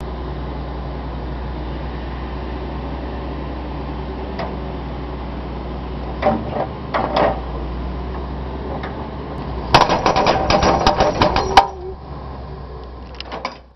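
Hydraulic breaker (machine-mounted jackhammer) working a paved surface, with the carrier machine's engine running steadily underneath. A few single knocks come around six to seven seconds in, then rapid hammering for about two seconds, the loudest part, before it stops.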